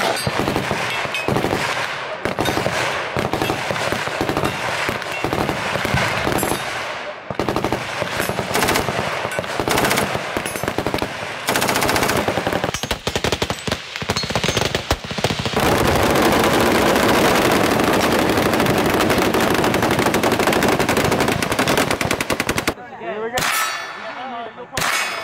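Bursts of fully automatic machine-gun fire, from guns including a belt-fed MG34. About halfway through, one unbroken stream of fire runs for about seven seconds before a short lull.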